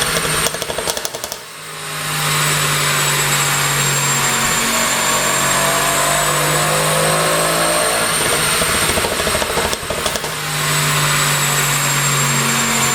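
Mercedes-AMG GLC 63 S's twin-turbo 4.0-litre V8 with a pop-and-crackle exhaust tune, held at raised revs. Twice, about a second in and again around ten seconds, the throttle is let off and the exhaust crackles and pops as the revs drop, then the engine revs back up.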